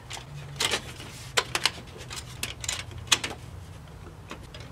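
Recessed downlight fixture being pushed up into a ceiling hole, its metal retaining tabs and housing giving a series of sharp clicks and clatters.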